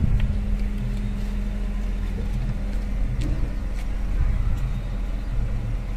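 Maruti Suzuki Celerio hatchback's engine idling steadily, a low even hum, with a few faint clicks.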